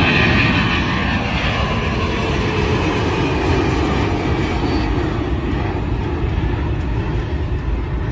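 Jet airliner taking off, its engines making a loud, even noise that slowly fades as the plane pulls away.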